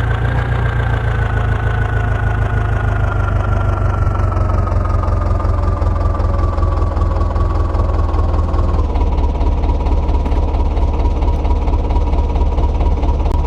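Diesel tractor engine running steadily under a load, with a high whine that slowly drops in pitch over the first several seconds and then holds steady.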